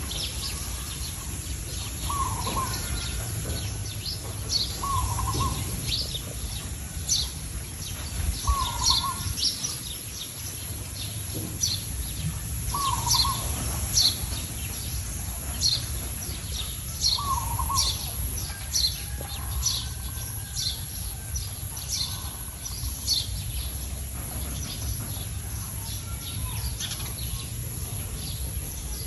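Birds calling outdoors: one bird repeats a short dipping call roughly every four seconds while others give many quick high chirps, over a steady low rumble.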